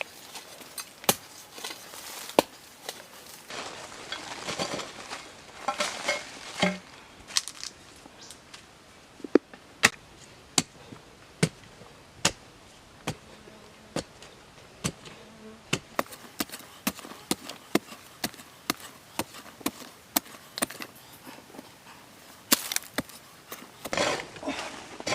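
Repeated sharp chopping strokes with a blade, roughly one or two a second, with rustling handling noise between strokes about four seconds in and again near the end.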